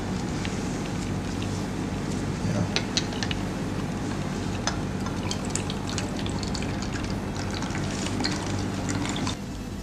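Small clicks and taps of a glass funnel and beaker against a plastic bottle, with liquid pouring through the funnel into the bottle over a steady hiss.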